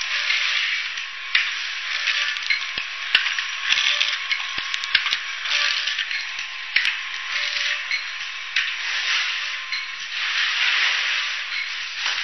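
Automatic sachet packing machine running: a steady mechanical hiss that swells and fades every second or so, with scattered sharp clicks and a faint steady whine.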